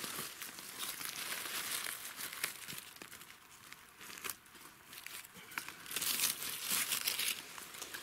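Dry fallen leaves rustling and crackling irregularly as a hand works through the leaf litter, picking mushrooms. The rustling is louder for a second or so near the end.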